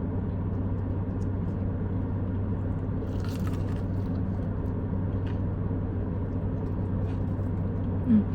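Steady low hum of a car engine idling, heard from inside the cabin, with faint chewing of a fried chicken finger.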